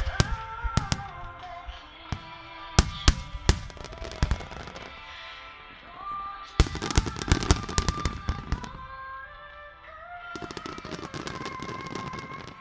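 Aerial firework shells bursting over music played through the show's loudspeakers. A few single bangs come in the first half, then a rapid run of bangs about six and a half seconds in, and a fine crackle near the end.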